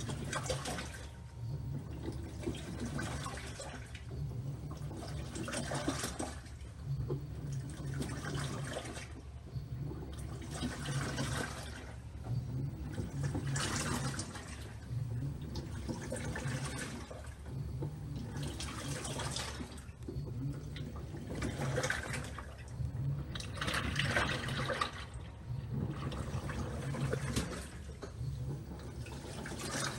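LG 6.5 kg washing machine washing a load: water swishes in repeated surges every second or two, and a low motor hum comes and goes with them.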